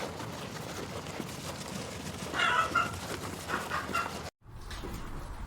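An animal calling in short bursts over a steady noisy background, once about two seconds in and again a second later; the recording then cuts off suddenly.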